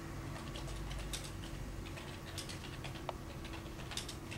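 Irregular clicking of keys being typed on a computer keyboard, over a faint steady hum.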